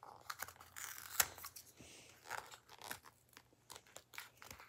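Small gift package being opened by hand: irregular crinkling and tearing of the wrapping with scattered clicks, and one sharper snap about a second in.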